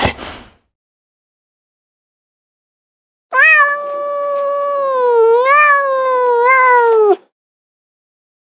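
A cat's single long, drawn-out yowl lasting about four seconds, wavering in pitch and sliding down at the end.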